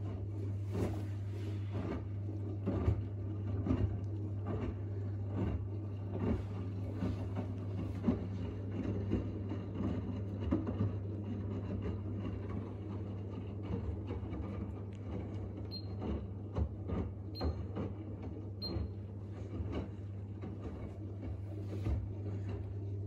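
Front-loading washing machine running: a steady hum with irregular knocks and clicks, and three short high beeps past the middle.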